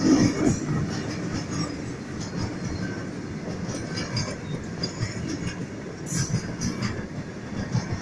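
Freight wagons of an Indian Railways goods train rolling past close by: a steady rumble of steel wheels on the rails, with irregular clacks and knocks as the wheels and couplings go by.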